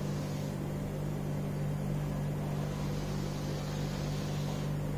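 Steady low hum holding two low tones, unchanging throughout.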